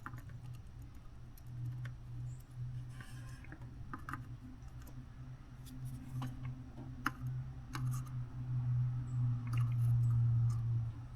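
A low steady electrical hum that swells louder over the last few seconds, with scattered light clicks and taps of small tools and parts being handled at a bench.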